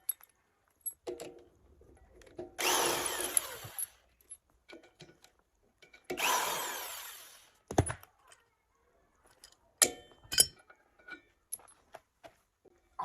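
Impact wrench spinning off the tractor's wheel nuts in two bursts of about a second and a half, each dying away as the nut runs free. Then a knock and a few light metal clinks.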